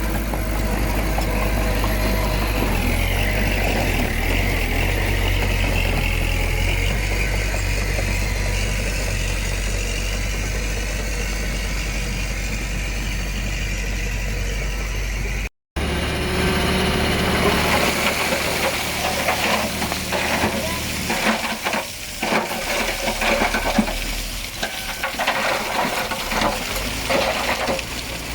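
Heavy construction machine engine running steadily. After a brief cut about halfway through, a dense crackling clatter of stones and gravel sounds over a lower engine rumble.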